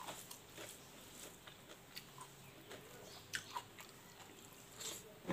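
Faint close-up chewing of a mouthful of rice and smoked pork, with small wet mouth clicks, and light rustling of fingers mixing rice on a plate.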